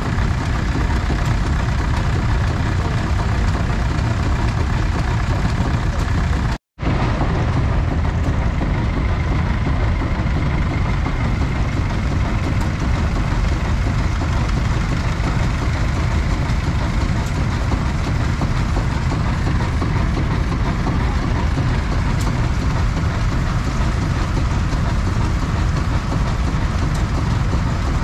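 Vintage tractor engines running steadily: a dense low rumble with no let-up, dropping out for a split second about seven seconds in.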